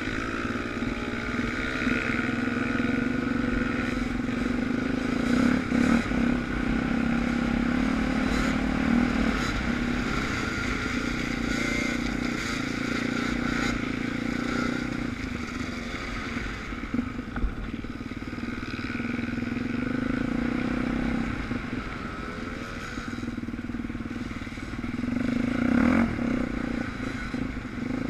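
Suzuki DR350's single-cylinder four-stroke engine running under way off-road, its pitch rising and falling with the throttle, with a few short knocks along the way.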